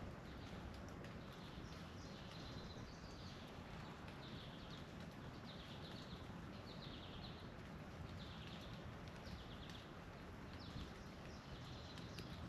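A bird calling over and over, short high calls about once a second, faint over a steady low background noise.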